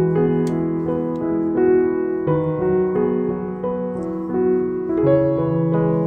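Background piano music: sustained notes and chords changing every second or so.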